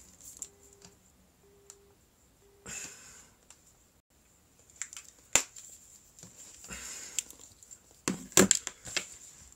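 Mobile phone's busy tone after a call ends: three short, even, low beeps about a second apart, heard faintly. Then knocks, clicks and rustles of things being handled, loudest as a quick cluster of sharp clicks about eight seconds in.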